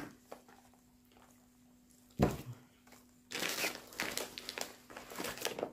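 Plastic bags and bubble wrap crinkling as items are handled in a packed box, after a single knock about two seconds in.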